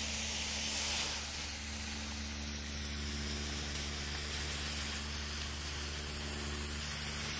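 Homemade potassium nitrate and sugar firework burning with a steady hiss while pouring smoke, a little louder in the first second.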